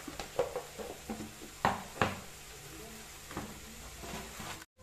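A few light, sharp clinks and knocks of kitchen containers and utensils at uneven intervals, over a low steady hum.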